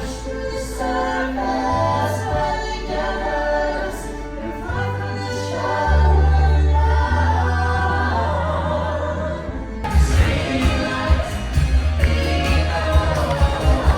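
Music with group singing in a choir-like style, switching abruptly about ten seconds in to a denser section with a steady low beat.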